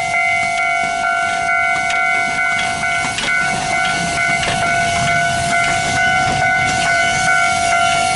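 Amamiya No. 21 steam locomotive with its whistle held on one steady tone over a hiss of steam.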